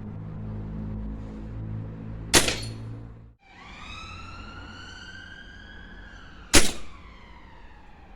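Two shots from a Remington Express XP .22 break-barrel air rifle, sharp cracks about four seconds apart. Between them a siren wails, its pitch rising slowly and then falling.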